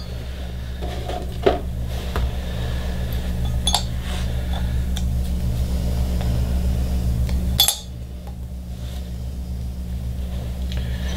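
A few sharp metallic clicks and clinks as the outboard's metal bearing carrier and reverse gear are handled on the bench while an O-ring is worked on, the loudest near the end, over a steady low hum from a machine in the room.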